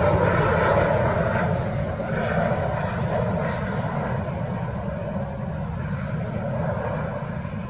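Jet engine noise of an Embraer 195 airliner on landing approach with gear down, a steady rushing sound that slowly fades as the plane flies away.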